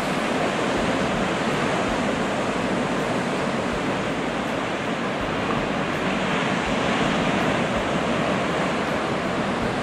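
Heavy ocean surf breaking over a rocky shoreline, a steady wash of churning water without pause.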